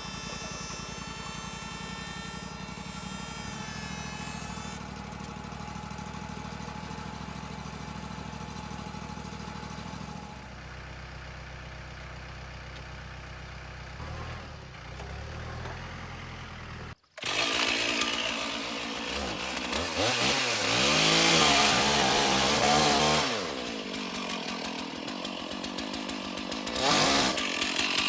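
Wood-Mizer LT35 portable bandsaw mill running steadily with an engine hum. About 17 seconds in, the sound cuts out for a moment and comes back much louder and noisier, like the saw cutting through the log, with a rise and fall in pitch and a peak partway through.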